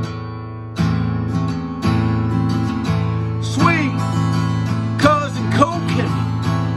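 Acoustic guitar strummed in chords that ring out between strokes, with a man's singing voice coming in about halfway through.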